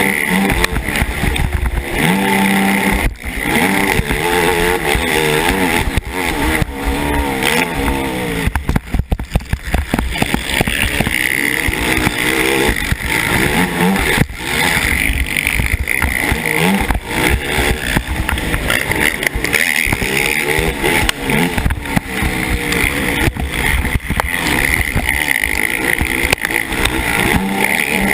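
KTM 450 SX racing quad's single-cylinder four-stroke engine, heard from the rider's helmet, revving up and down repeatedly at race pace as the rider works the throttle and gears. The sound breaks up briefly around a third of the way in.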